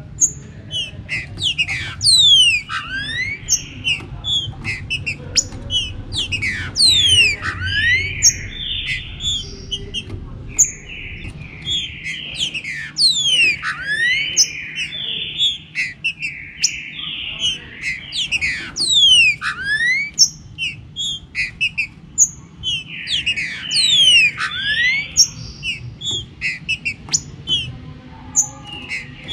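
Several green-winged saltators (trinca-ferro) singing over one another: a dense, nearly unbroken run of whistled phrases and quick downward-sweeping notes.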